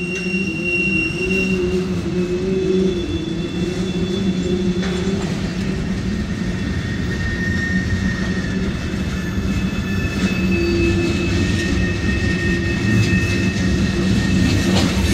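Freight train tank cars rolling past with a steady rumble of wheels on rail. Thin, high-pitched wheel squeals come and go over it.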